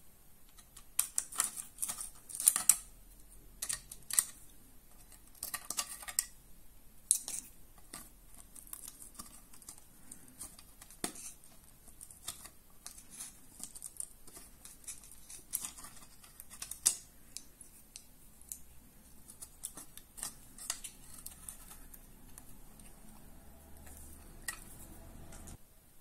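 Screwdriver clicking and scraping against a plastic wall switch as it is pried out of the wall box: irregular sharp clicks and short scrapes, thickest in the first several seconds, then sparser.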